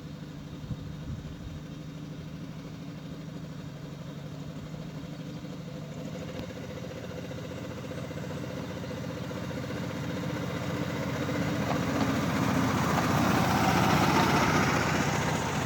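Small petrol engine of a petrol-hydraulic miniature railway locomotive running steadily, growing louder as it approaches and loudest about three-quarters of the way through.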